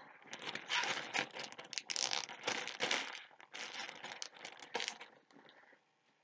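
Clear plastic bag crinkling in irregular bursts as a sheet of fabric is handled and slid into it. The crinkling fades out about five seconds in.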